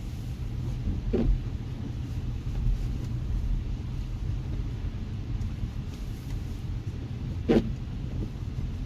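A steady low rumble with two short knocks, one about a second in and a louder one near the end.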